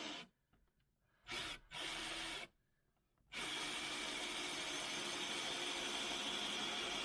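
Power drill with a 2-1/8-inch hole saw cutting into a solid pine door. It stops shortly after the start, gives two short runs, then runs steadily again.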